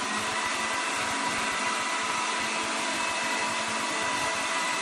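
Steady whooshing noise, fan-like, with a faint steady whine in it.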